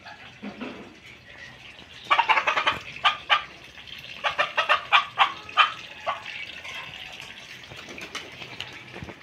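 Chicken clucking: two quick runs of loud, short clucks, the first about two seconds in and the second about a second later.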